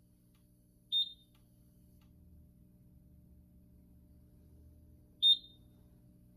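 Two short, high-pitched electronic piezo beeps from the Simplex fire alarm demo system, about four seconds apart, over a faint steady low hum.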